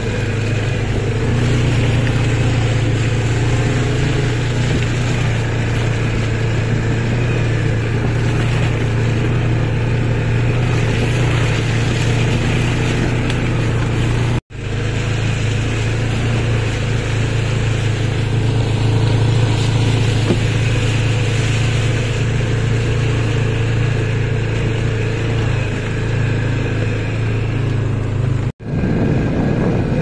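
Quad bike (ATV) engine running steadily under way, a loud, even low drone. The sound drops out abruptly twice, about halfway through and near the end.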